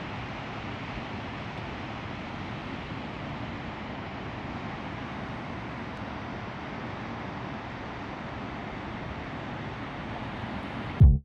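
Steady rushing noise of ocean surf and wind at the shore, even and without separate wave crashes. Right at the end, electronic music with a heavy, pulsing beat cuts in much louder.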